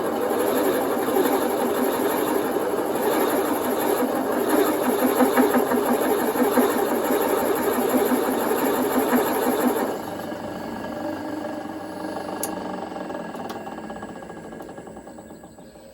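A boring head cutting a bore in metal on a running machine spindle, a steady machine noise with rapid chatter. About ten seconds in it drops sharply, then fades steadily away.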